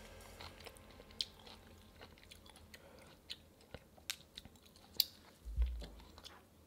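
Wooden chopsticks picking through saucy braised saury and green onion kimchi in a cast-iron pan: scattered faint clicks and small wet sounds, with one dull low thump about five and a half seconds in.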